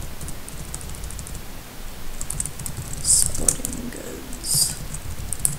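Computer keyboard typing in two quick runs of keystrokes with a short pause between them, as a short phrase is typed. Two brief hissy bursts stand out as the loudest sounds, one about three seconds in and one a second and a half later.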